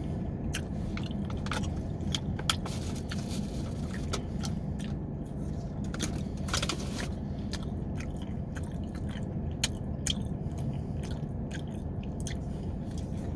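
A person biting and chewing food close to the microphone, with scattered short crunches and clicks, over a steady low rumble.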